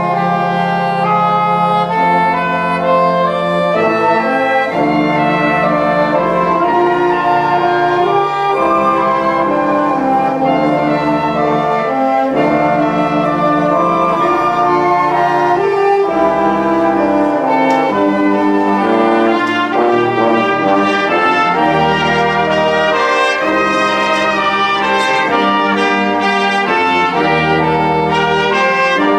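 Wind band playing with full brass: trumpets, trombones and horns carry the tune over a steady bass line. The band comes in loud right at the start and stays loud.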